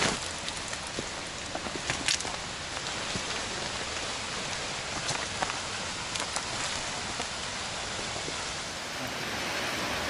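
Steady rain hiss, with a few scattered sharp ticks of drops.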